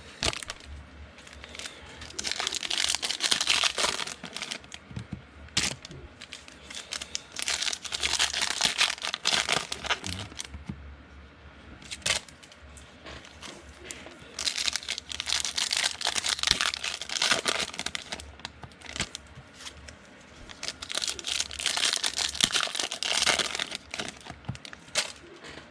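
Football trading card packs' wrappers being torn open and crinkled by hand, in several bouts of crinkling with sharp snaps between them.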